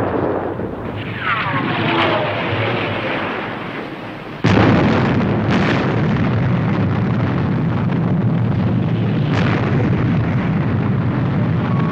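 Missile shot sound effect: the rush of the launch dies down under a falling whistle, then about four and a half seconds in a sudden huge explosion breaks out and goes on as a steady roar and rumble.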